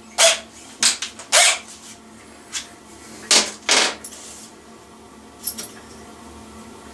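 An irregular string of sharp clicks and clatters of hard tools being handled while a drill bit is picked out, the loudest in the first four seconds.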